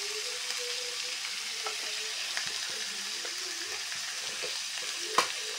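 Diced potatoes and ground green masala sizzling steadily in hot oil in an iron kadhai, with one sharp click near the end.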